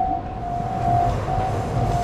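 Japanese level-crossing warning bell ringing in a steady, rapidly repeating electronic ding, signalling that the crossing is closed. A low rumble builds beneath it about half a second in, typical of a train passing over the crossing.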